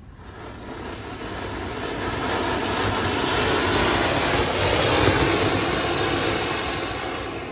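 Ground fountain firework (anar) spraying sparks with a loud, steady hiss that swells to its peak about five seconds in and dies away near the end.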